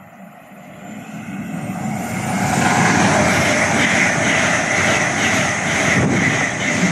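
LNER Azuma Class 801 electric multiple unit passing through the station at speed without stopping. A rush of wheels on rail and air builds over the first two seconds, then stays loud, with a regular beat as the wheelsets go by.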